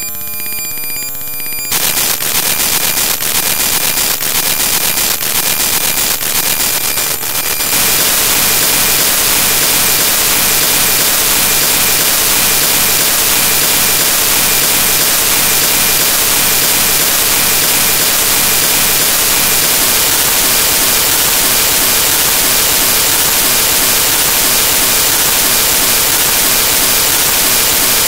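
Harsh digital noise from corrupted audio data. Several steady electronic tones sound together at first. Then, just under two seconds in, they give way to crackling, clicking static, which jumps to a louder, even static hiss about eight seconds in.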